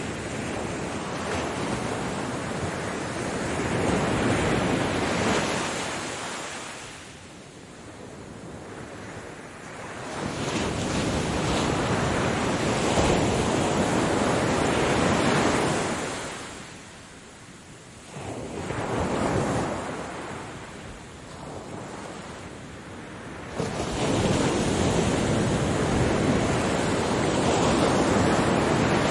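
Ocean waves surging in and falling back. The noise swells and ebbs in slow surges several seconds apart, about four of them, with quieter lulls between.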